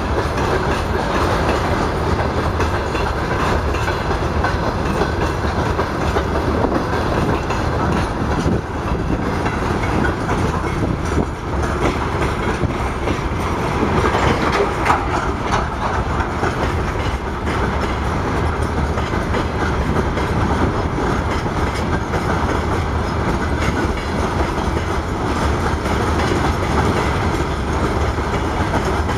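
Freight train wagons rolling past at speed: steady wheel-on-rail rumble with continuous clickety-clack of wheels over rail joints.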